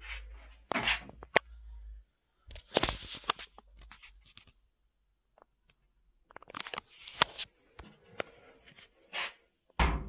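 Handling noise: scattered clicks, knocks and scrapes with quiet gaps between them, a low rumble over the first two seconds and a thin hiss over the last few.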